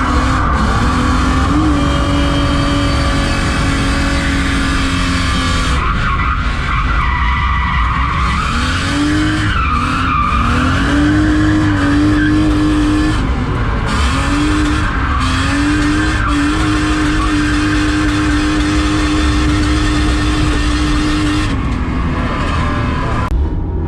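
BMW E36 323's straight-six engine running at high revs during a drift. The note climbs and is held high for long stretches, dropping briefly about 6 and 14 seconds in, while the tyres skid and squeal.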